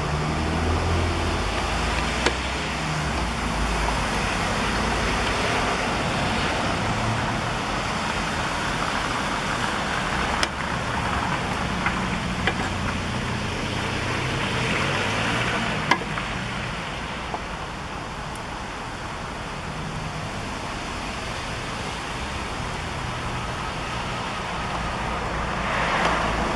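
Steady road traffic noise, with a few sharp metallic clicks of hand tools working at a rusty cotter pin in a suspension ball joint nut.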